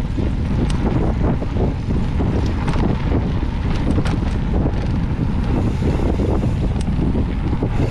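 Wind buffeting the microphone of a handlebar-mounted action camera while riding a mountain bike down a dirt singletrack, a steady heavy rumble, with a few sharp clicks and rattles from the bike over bumps in the trail.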